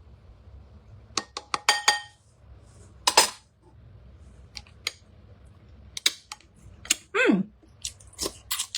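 Kitchen utensils clinking and tapping against dishes: a quick run of ringing clinks about a second in, a sharp knock around three seconds, then scattered clicks. A short falling voice hum near the end.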